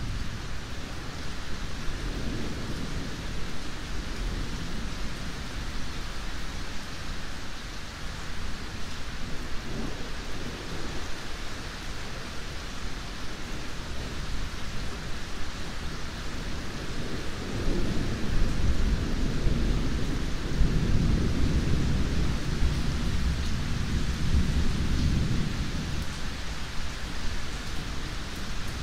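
Steady rain falling during a thunderstorm. Low rumbles of thunder come about two and ten seconds in, then a louder rumble starts a little after halfway and rolls on for about eight seconds.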